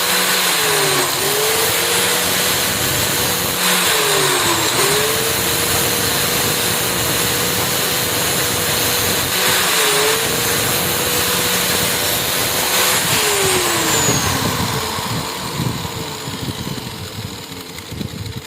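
An electric power tool's motor running with a loud rushing noise and a steady whine whose pitch dips briefly three times as it is pressed against the work. It is then switched off and spins down, falling in pitch and fading, over the last few seconds.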